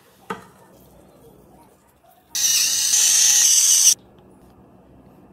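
A tray knocks down onto a wooden board, then an electric pepper mill whirs and grinds for about a second and a half before cutting off abruptly.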